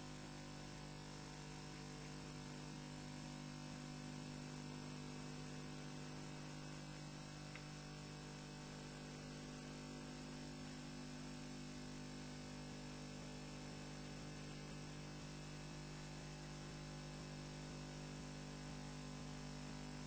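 Steady electrical hum and hiss from a nest camera's audio, with several constant tones including a high thin whine. Nothing changes through it, and no bird calls stand out.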